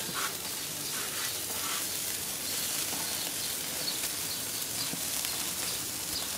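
Butter-coated corn on the cob sizzling on a hot charcoal grill: a steady hiss with small crackles.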